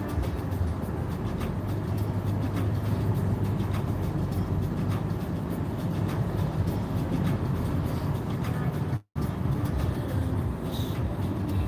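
Steady road and engine rumble of a moving car heard from inside the cabin, broken by a split-second silence about nine seconds in.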